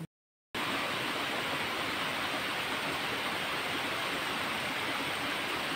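Water of a small waterfall and stream running steadily. The sound cuts in suddenly about half a second in, after a brief silence.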